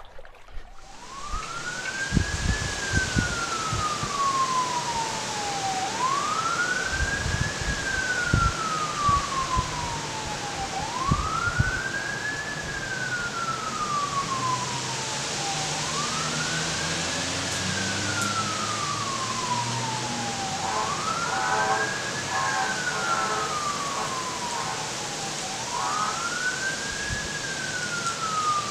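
A siren wailing: one tone climbs quickly, then slides slowly back down, six times at about five-second intervals, over a steady hiss. A few low thumps sound in the first ten seconds.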